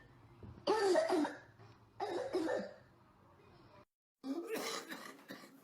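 A person coughing: two loud coughing bursts about a second apart, then, after a brief break into silence, a fresh run of several shorter coughs.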